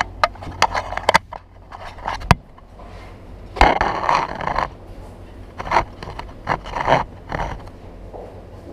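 Handling noise from a small handheld camera being moved about at a table: sharp clicks and knocks in the first couple of seconds, then a longer scraping rub about three and a half seconds in, and a few more rubs later.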